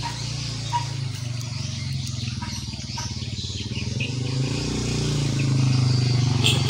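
A small engine running steadily, getting louder over the last couple of seconds, with faint bird chirps above it.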